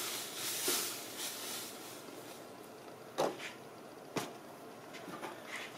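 Sand sprinkled onto a stretched plastic trash-bag membrane, a soft hiss that fades away over the first couple of seconds. Two sharp clicks follow about a second apart, with a few faint ticks near the end.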